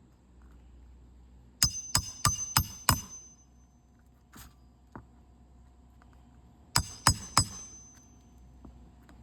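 Hammer blows on metal with a bright ringing: a run of five quick strikes, then after a pause a run of four.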